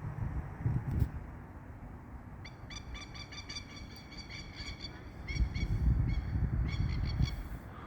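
A bird calling a rapid run of short, harsh repeated notes, about three or four a second, starting a few seconds in and stopping near the end, with wind rumbling on the microphone.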